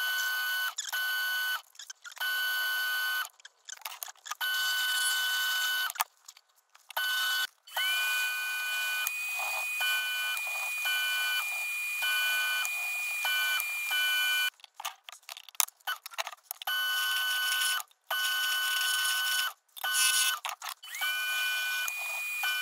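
Wood lathe running with a steady high motor whine over a hiss, in short pieces broken by abrupt gaps. Twice the whine rises and then holds, as the lathe spins up to speed.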